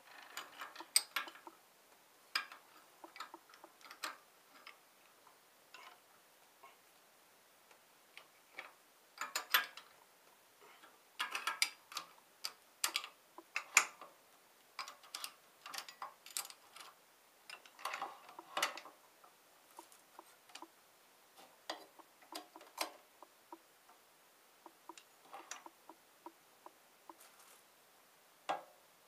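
Scattered light clicks, taps and small clatters of hand work on a stopped metal lathe, as the carriage and tool post are shifted and a copper pipe is set in the chuck. They come at an uneven pace in short clusters, with no motor running.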